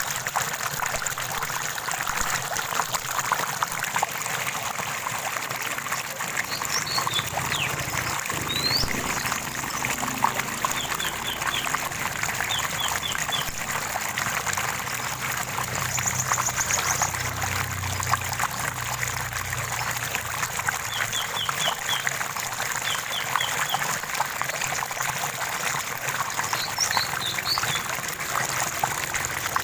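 Running water trickling and splashing steadily, with birds calling over it. The calls are short rising whistles and quick runs of three or four chirps, with a brief high trill about halfway through.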